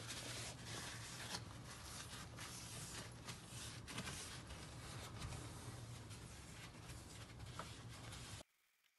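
Paper towel wiped back and forth over a glass-ceramic cooktop: a continuous scratchy rubbing that cuts off abruptly near the end.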